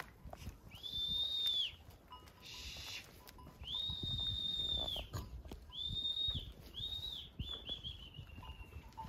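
Shepherd's herding whistles driving a flock of sheep: four high, clear whistles, one held about a second and a half, then a quick run of short chirps falling in pitch near the end. The flock's shuffling patter runs low underneath.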